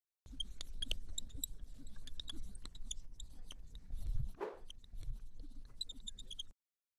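Marker pen drawing on a whiteboard: a quick run of scratchy strokes with small high squeaks, cutting off abruptly near the end.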